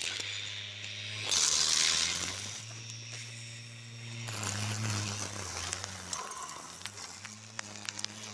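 Homemade lawn mower running: its small motor hums steadily while the blade cuts grass. A loud hissing rush comes in a little over a second in, and scattered clicks and rattles follow in the second half.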